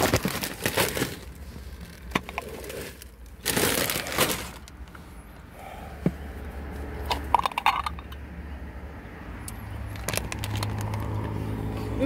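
Plastic safety seal crinkling and tearing as it is stripped off a glass salsa jar, then a few sharp clicks and clinks as the jar's lid is handled. A low steady hum comes in near the end.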